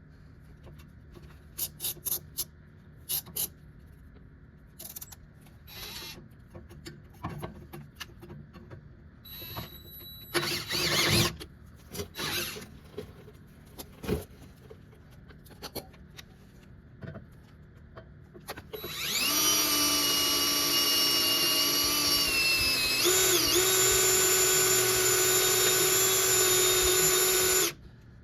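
Scattered clicks and knocks of tool handling, then an electric drill runs steadily for about nine seconds, drilling a hole in the truck's steel, its pitch dipping briefly midway as the bit bites, before it stops abruptly.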